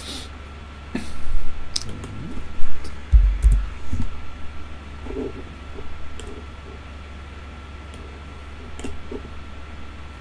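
Computer mouse clicking now and then over a steady low electrical hum and a thin steady whine, with a cluster of heavy low thumps about three seconds in.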